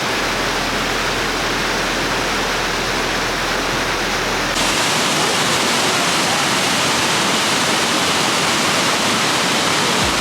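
Waterfall rushing, a loud steady roar of falling water that turns louder and brighter about halfway through.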